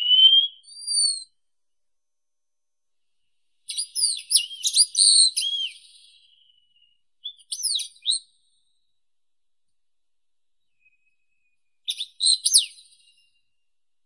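Wallcreeper calling with thin, high whistles: a rising whistle at the start and a second shorter whistle, then quick bursts of high chirping notes about four seconds in, around seven and a half seconds, and near the end.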